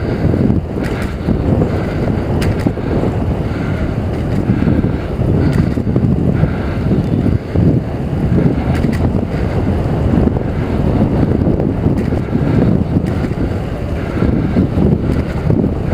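Wind buffeting the microphone of a helmet camera on a moving mountain bike: a steady, fluttering low rumble, with a few faint clicks from the bike.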